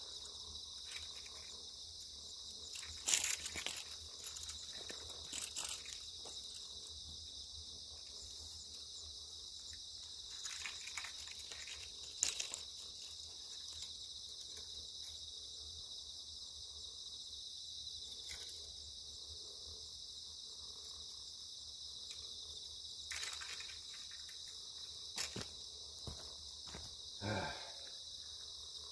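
Steady high-pitched chorus of insects, with a few short rustles and knocks on top, the loudest about three seconds and twelve seconds in.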